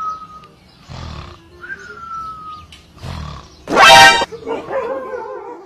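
A dog startled awake gives a sudden loud yelp, about half a second long, about four seconds in, followed by wavering cries. Two short falling whistle-like tones come before it.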